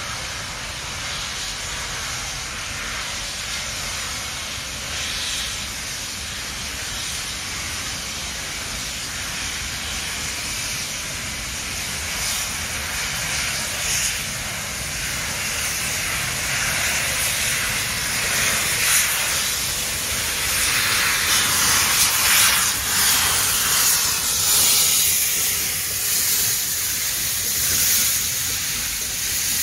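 Steam locomotive passing close with its cylinder drain cocks open, giving a loud hiss of escaping steam. The hiss grows from about halfway through, is loudest about two-thirds of the way in, and eases a little near the end.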